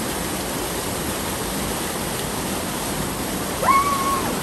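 Steady rushing of a small river waterfall pouring through a narrow rock chute. Near the end a short high call rises and holds one pitch for about half a second.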